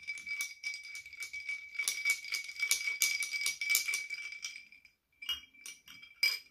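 Ice cubes clinking and rattling against a tall drinking glass as the drink is stirred with a straw, with the glass ringing on a steady tone. The stirring stops about five seconds in, followed by a few last clinks.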